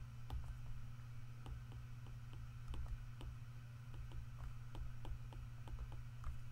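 Stylus tip tapping and clicking on an iPad's glass screen while numbers and commas are handwritten: short sharp clicks at uneven spacing, a few a second, over a steady low hum.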